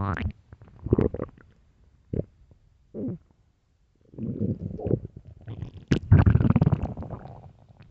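Hungry human stomach growling from an empty stomach: several short gurgles in the first three seconds, then a longer rumble and a long drawn-out growl near the end.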